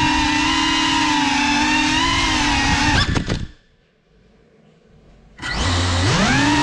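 FPV quadcopter's brushless motors and propellers whining, the pitch wavering with the throttle. About three seconds in they wind down and go nearly quiet as the drone sits on the floor, then about two seconds later spool back up with a rising whine for take-off.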